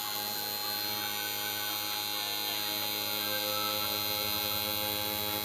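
Electric tattoo machine running at a steady buzz while tattooing skin.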